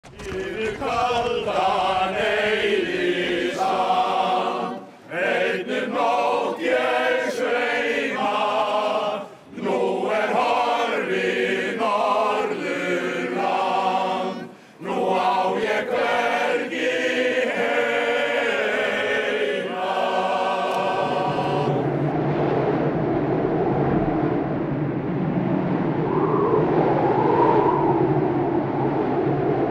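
A group of voices singing in harmony, phrase by phrase with short breaks. About 21 seconds in the singing stops and a steady blizzard wind takes over, blowing hard on the microphone.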